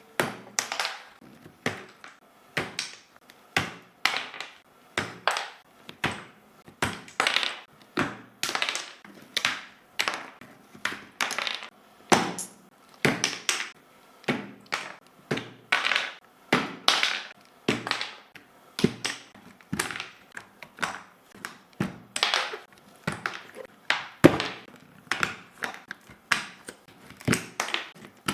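Plastic keyboard parts clicking and knocking in a long run of short, sharp clatters, about two a second, from handling during cleaning.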